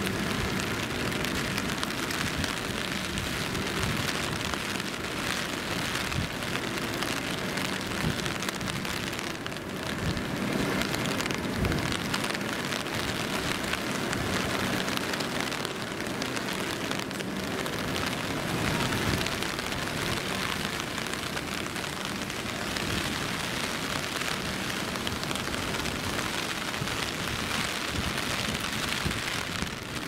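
Steady typhoon rain falling on a city street, with a low rumble of traffic underneath.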